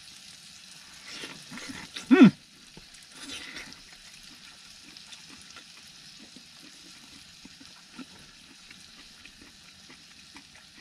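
A steak frying in oil on an electric grill pan, with a faint steady sizzle. About two seconds in a man's voice gives a short murmur, and light clicks of a knife and fork on the pan follow.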